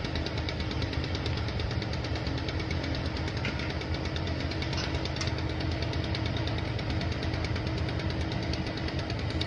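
Airship's piston engines idling, a steady engine sound with a fast, even pulse.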